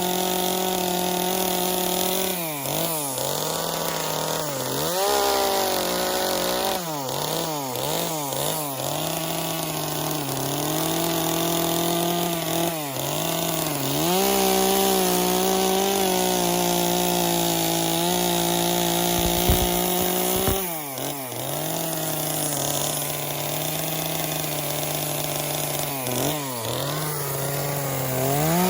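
Gas chainsaw running at high speed while carving into wood, its engine pitch dipping and recovering again and again as the chain is pressed in and eased off, with several quick dips in a row in the first ten seconds.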